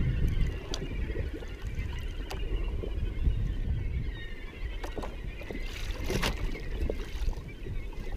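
Water lapping and sloshing against the hull of a Sea-Doo jet ski under a steady low rumble, with a few light clicks scattered through.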